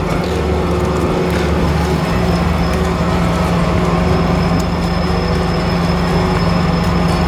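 A fishing boat's engine and deck machinery run with a steady low drone. A thin, high, steady whine joins about three seconds in.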